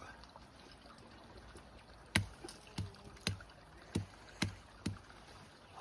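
A run of six sharp knocks, roughly two a second, starting about two seconds in, over a faint steady background hiss.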